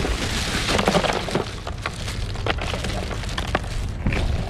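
Ice cubes tumbling out of a plastic bag into a plastic cooler, clattering against each other and the cooler walls: a dense rattle at first, thinning to separate clinks as the bag empties.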